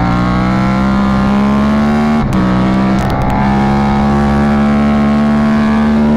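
Sport motorcycle engine at high revs under hard acceleration, heard through a helmet microphone, its note climbing slowly, with a quick gear change about two seconds in and the pitch climbing again after it. Wind noise runs underneath.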